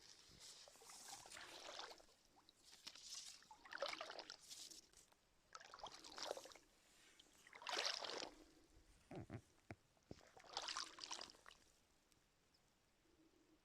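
Rowing strokes: oar blades dipping and pulling through lake water, a swish about every two seconds, with a few short knocks partway through.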